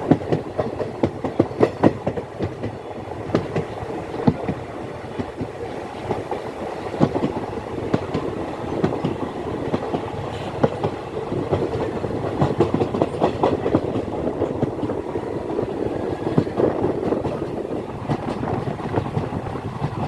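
Intercity superfast express train running along the track: a steady rumble with irregular sharp clacks of the wheels passing over rail joints.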